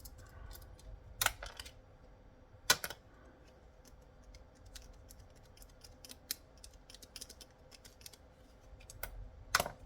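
Plastic and small metal parts of radio-control handsets being handled and taken apart: scattered light clicks and taps, with three louder knocks, about a second in, near three seconds and near the end.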